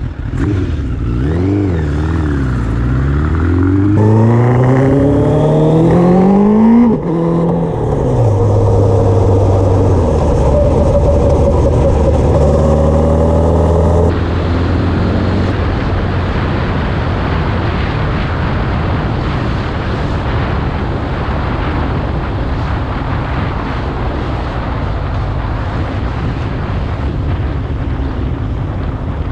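Suzuki GSX-R motorcycle's inline-four engine on the move, its pitch climbing under acceleration for several seconds and dropping sharply about seven seconds in at a gear change, then holding steady. From about halfway a steady rush of wind noise covers the engine.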